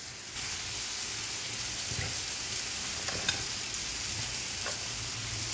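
Marinated chicken sizzling steadily in a hot cast iron grill pan, with a few faint clicks as cut vegetable pieces drop into a glass bowl.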